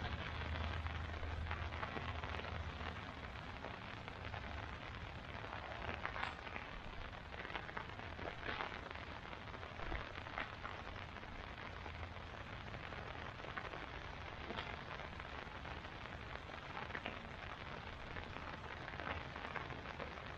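Rain falling on a tarp overhead: a steady hiss with scattered individual drip taps.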